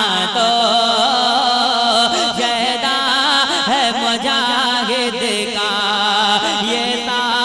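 Naat singing: a male voice sliding through long, wavering, ornamented notes without clear words, over a steady held drone.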